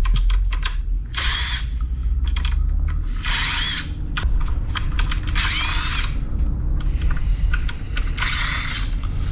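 Power drill run in four short bursts of under a second each, its motor pitch rising and falling, with small clicks between, while e-waste is being taken apart. A steady low rumble runs underneath.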